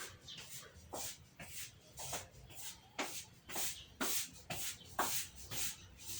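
Repeated short scraping or rubbing strokes, roughly two a second, each a brief hiss.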